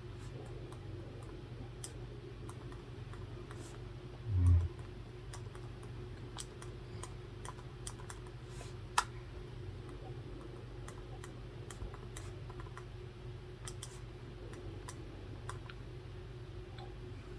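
Sparse light clicks and taps from someone working at a desk over a steady low hum, with one short, loud low thump about four and a half seconds in and a sharper click about nine seconds in.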